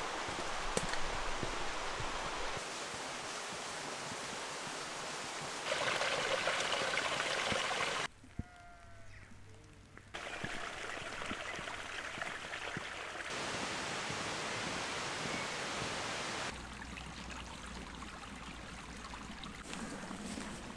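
Outdoor countryside ambience: a steady rushing hiss that changes level abruptly several times. There is a quieter stretch about eight seconds in, where a bird calls a few times.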